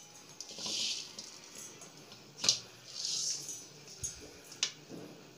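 Dry-roasted spices and peanuts rattling and sliding over an aluminium kadai in short bursts as the pan is tipped to empty them into a steel bowl, with a couple of sharp knocks.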